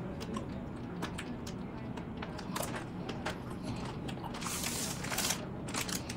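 Wet licking and lip-smacking clicks of people eating soft ice cream, with a crackle of plastic ice-cream wrappers being handled about four and a half seconds in.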